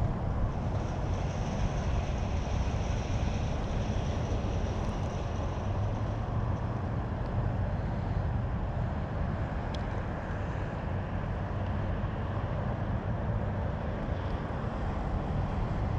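Steady low outdoor rumble with no distinct events, with a faint high hiss for the first few seconds.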